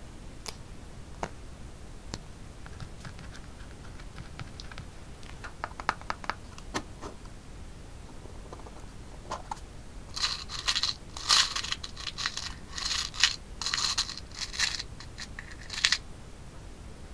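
Tiny metal charms clinking and rattling in a small cardboard box as a pointed tool stirs through them, a run of sharp rattles lasting several seconds past the middle. Before that, only faint light clicks and rustles of handling a sticker sheet and the box.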